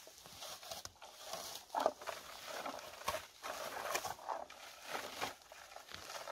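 A plastic berry picker combing through bilberry bushes: a series of short, irregular rustling swishes as its teeth strip berries and leaves from the shrubs.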